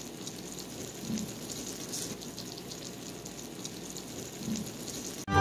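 Hot baked casserole sizzling with a steady fine crackle, just out of the oven.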